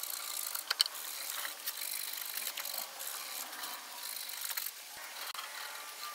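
Small metal clicks and light rattling as nuts are run down by hand onto the studs inside a GM SI-series alternator housing.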